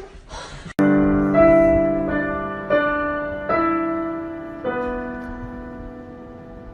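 Background piano music: slow notes struck one after another, each ringing and fading, beginning suddenly about a second in.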